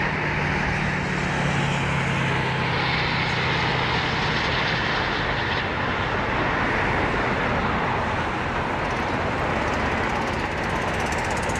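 Union Pacific diesel locomotives hauling a double-stack container train past. The locomotives' low engine drone fades over the first few seconds as they pull away, leaving the steady rumble of the container cars rolling on the rails.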